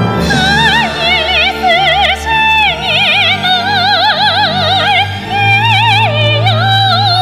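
A female singer's high, bright voice singing held notes with a wide vibrato, accompanied by a symphony orchestra sustaining low chords underneath. The voice enters just after the start, with brief breaks between phrases.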